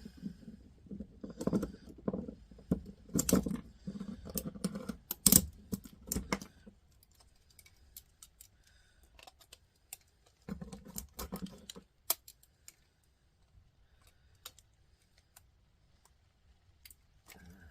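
Hand-dismantling of a cassette deck mechanism: small plastic and metal parts clicking, rattling and scraping as they are handled, pried and snipped, in busy clusters with scattered single clicks between and one sharp click past the middle.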